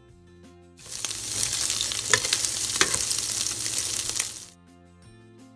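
Chopped sausage frying in a little oil in a pan, sizzling while a spatula stirs it, with a couple of sharp clicks. The sizzle starts about a second in and cuts off abruptly near the end.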